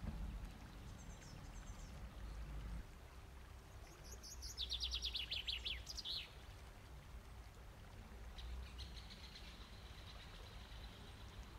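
Birds chirping: a few high chirps about a second in, then a fast trill falling in pitch about halfway through, with a low rumble underneath.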